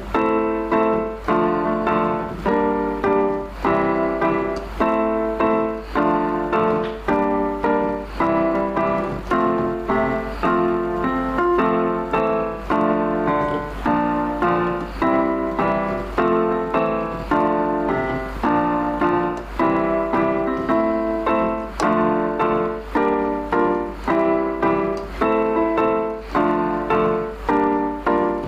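Background piano music, notes struck in a steady, even rhythm.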